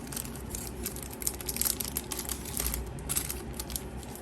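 Yu-Gi-Oh trading cards and their foil pack being handled and flipped through: crinkly rustling with quick, irregular clicks that ease off near the end.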